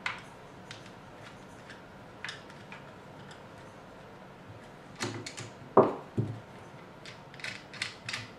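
Screwdriver turning out the single action screw of a Ruger 10/22 rifle, with small clicks and ticks. A few sharper knocks of parts being handled and set down come about five to six seconds in, followed by more light ticks.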